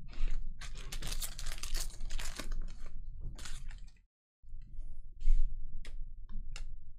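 A foil trading-card pack wrapper torn open and crinkled for about four seconds. After that come quieter short clicks and rustles as the stiff cards are slid and flipped through in the hand.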